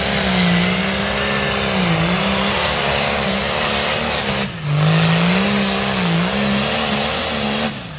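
Pulling tractor's diesel engine running flat out under load as it drags the weight sled, its pitch wavering and dipping a few times, then dropping away sharply near the end as the pull ends.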